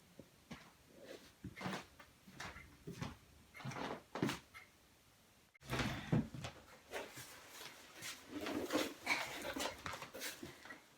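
Quiet handling noises: scattered short knocks and rustles, broken by a brief dropout about halfway through.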